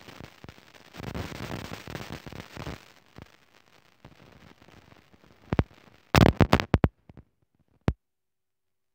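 A rushing noise that swells and fades, then a quick run of loud, sharp clicks a little past halfway, after which the sound cuts out to dead silence.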